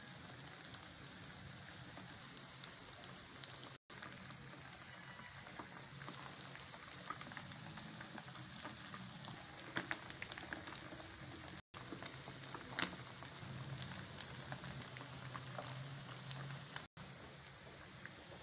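Flour-coated anchovies deep-frying in hot oil in a pan: a steady sizzle with scattered crackling pops. The sound drops out for an instant three times.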